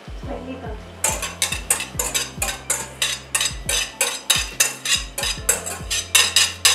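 Wire whisk clicking rapidly against the inside of a bowl as beaten egg is whisked and scraped out into a pan of pasta, a quick even rhythm of about four to five strokes a second starting about a second in.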